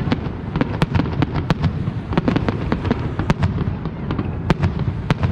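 Fireworks bursting in rapid succession: a dense run of sharp cracks and bangs, several a second, over a continuous low rumble of overlapping booms.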